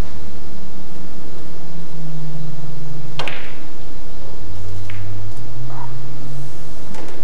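Pool cue striking the cue ball with a sharp click about three seconds in, followed by a few fainter clicks of billiard balls knocking together and off the cushions, over a low background hum.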